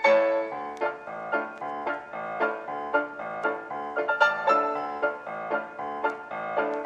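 Background piano music, a run of distinct plucked-sounding keyboard notes at a lively, even pace.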